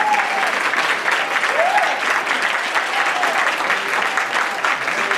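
Audience applauding steadily at the end of a speech, with a few voices calling out over the clapping.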